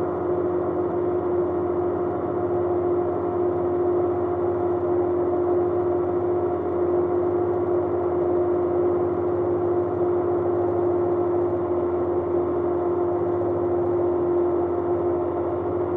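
The Rotax engine of an ultralight aircraft droning steadily in flight: one strong, even tone with overtones, unchanging throughout.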